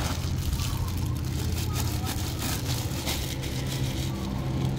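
Steady low hum of a running engine, with light crinkling of a plastic bag worn as a glove while sticky rice is scooped from a cloth-lined container.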